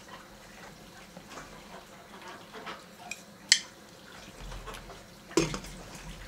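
Chopsticks and a plate tapping and clinking against a stainless steel steamer pot. There is a sharp clink about three and a half seconds in, and a heavier knock near the end as the glass lid is set on the steamer.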